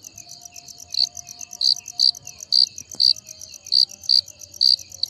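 Crickets chirping: a fast, even train of high chirps, joined from about a second in by a louder cricket chirping roughly twice a second.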